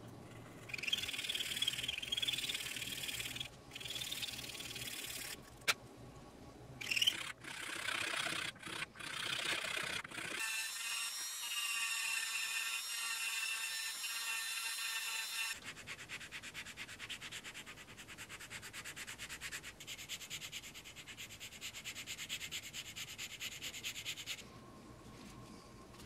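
White oak saxophone mouthpiece being shaped by hand: a run of short scraping rubs against the wood. About ten seconds in, a handheld rotary tool starts, a high-pitched whine as a small bit grinds out the inside of the mouthpiece. This gives way to a fast, even rasp that stops a couple of seconds before the end.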